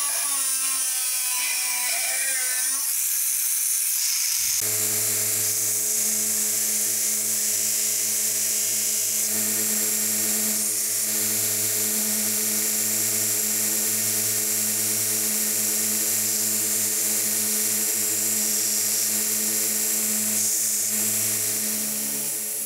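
An angle grinder cutting through a steel bar for the first few seconds, its pitch wavering under load. Then a small benchtop belt grinder runs at a steady hum with a high grinding hiss as a small metal part is ground against its abrasive belt.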